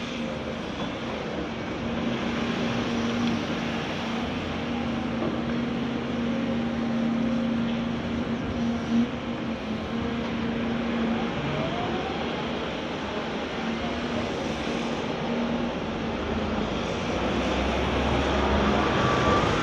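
Caterpillar hydraulic excavator's diesel engine running steadily as a constant drone while the machine works, with faint whines that rise and fall in the second half and one brief louder moment about halfway through.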